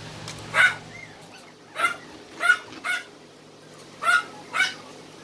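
Smooth-coated Brussels Griffon puppy giving six short yapping barks in about four seconds, some in quick pairs, while playing with a person's hand.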